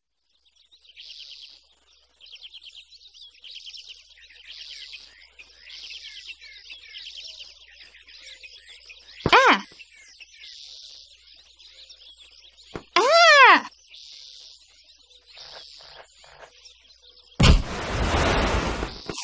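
Cartoon soundtrack of birds chirping steadily, with two short, loud pitched sounds that rise and fall about 9 and 13 seconds in. A loud burst of noise comes near the end.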